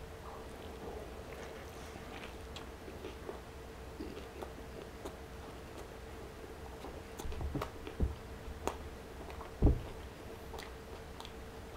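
Close-up chewing of a big chili cheese burger: soft wet mouth clicks and smacks, with a few louder thumps about seven to ten seconds in.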